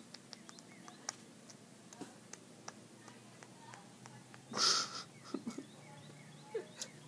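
Quiet room with scattered light taps and clicks, and one short breathy burst from a person's voice about four and a half seconds in, followed by a few faint small sounds.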